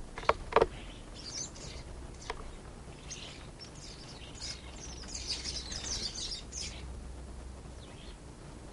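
Birds chirping and chattering in quick high runs, busiest in the middle, with two sharp clicks in the first second.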